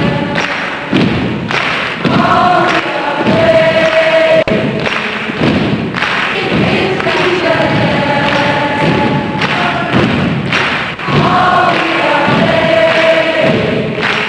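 A large crowd chanting or singing in unison, with repeated loud thumps running under the voices.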